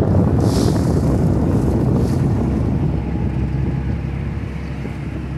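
Strong wind buffeting the microphone on a moving boat's deck, with choppy river water slapping and splashing below. A short hiss of splashing water comes about half a second in.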